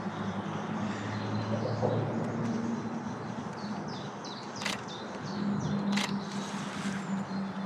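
Outdoor ambience with a small bird giving a quick run of short falling high-pitched notes near the middle, over a steady low hum. Two sharp clicks, a bit over a second apart, from a Canon EOS R5 camera's shutter.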